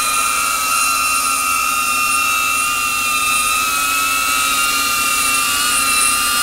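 DJI Avata FPV drone hovering on AFOIS low-noise propellers: a steady high-pitched whine from its four ducted props over a rushing hiss, shifting slightly in pitch as it holds position.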